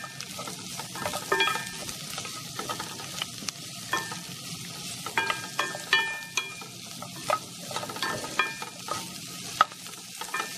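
Diced onion and chopped pieces of fried pork belly (lechon kawali) sizzling as they fry in a pot, under a steady hiss. A wooden spatula scrapes and knocks against the bottom of the pot in repeated short, irregular strokes as the food is stirred.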